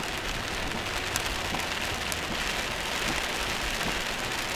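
Heavy rain falling on a moving car: a steady hiss with a few sharper individual drop hits.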